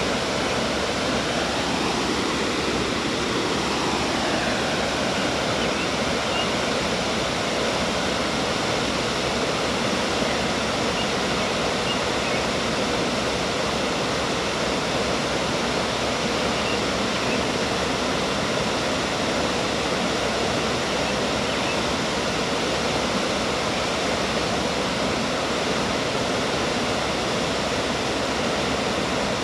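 Water pouring over a low river dam and rushing over the rocks below, a steady, unchanging rush.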